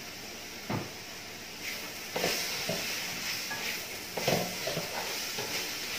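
Strips of bottle gourd sizzling in a hot wok as a spatula stirs and tosses them. The spatula knocks against the wok several times, and the sizzle grows louder about two seconds in.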